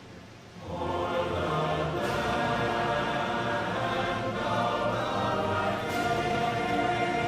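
Background music with a choir singing long held chords. It dips briefly near the start, then swells back in about a second in.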